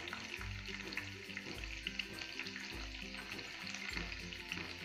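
Chopped garlic and cumin seeds sizzling in hot oil in a kadhai, the tempering (phodni) for a curry, over faint background music.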